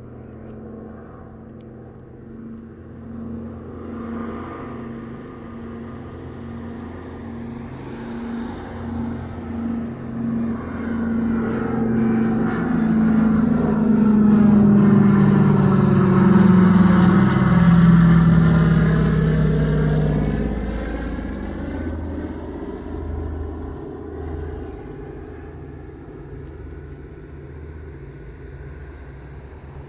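Twin radial engines of a Douglas C-47 Skytrain (DC-3), Pratt & Whitney R-1830 Twin Wasps, in a low flyby. The steady drone builds to its loudest about halfway through, drops in pitch as the aircraft passes overhead, then fades away.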